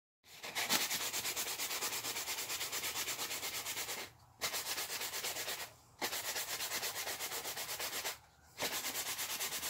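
Hand-held sandpaper rubbing back and forth over a small black locust chisel handle in quick, even rasping strokes, stopping briefly three times.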